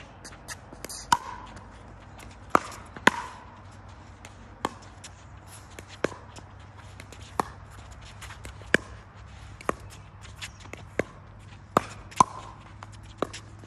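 A pickleball rally: paddles striking the plastic ball back and forth, about a dozen sharp pocks roughly one every second, unevenly spaced.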